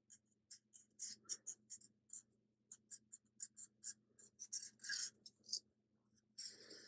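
Sharpie felt-tip marker scratching across cardstock in short, quick strokes, faint, as it traces around the edge of a cut-out paper template.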